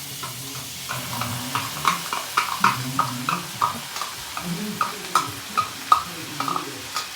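Spoon stirring in a pan, tapping against it about twice a second, as blended garlic, ginger, bell pepper and onion cook in melted butter with a faint sizzle.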